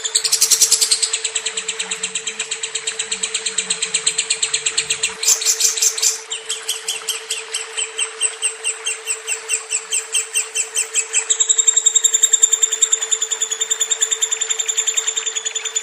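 Lovebird singing a long, unbroken, rapid chattering trill of about seven chirps a second, shifting pitch a few times along the way. A steady low hum runs underneath.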